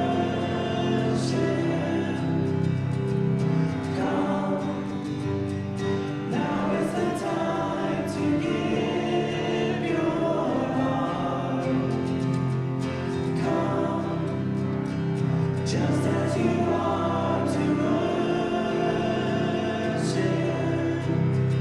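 A congregation singing a hymn together, in long held chords.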